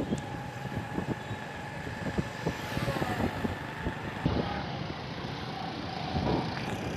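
Street traffic: the engines of passing cars and motorcycles, a steady hum with scattered small knocks.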